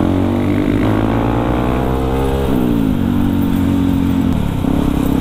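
Yamaha WR155R single-cylinder motorcycle engine heard on board while riding. It accelerates with a rising pitch, drops sharply about halfway through, then runs fairly steadily with another small dip near the end.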